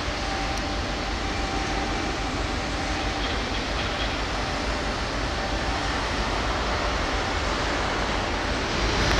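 Steady shipyard machinery noise: a continuous rushing hum with faint steady tones running through it, growing slightly louder near the end.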